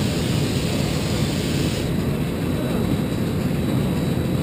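Steady low rumbling noise from the Batman: The Ride roller coaster car as it moves through the station, picked up by a camera mounted on the car.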